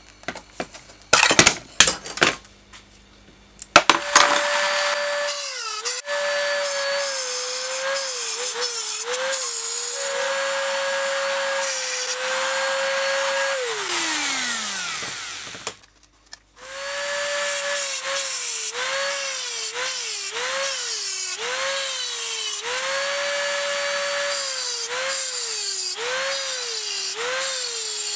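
A few knocks of metal being handled, then a handheld high-speed rotary tool grinding off the lamp's rivet heads, its whine dipping in pitch again and again as it cuts. About halfway through it winds down with a falling pitch, then starts again a couple of seconds later and grinds on with the same repeated dips.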